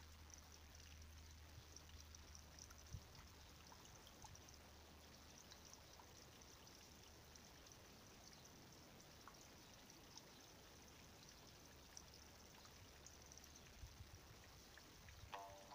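Near silence: a faint steady hiss with a low hum that stops near the end, and a few faint ticks.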